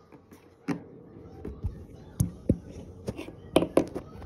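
Plastic toy wolf figurines being knocked together and tapped on a wooden tabletop during a play fight. A few scattered sharp clacks come first, then a quick cluster of them a little before the end.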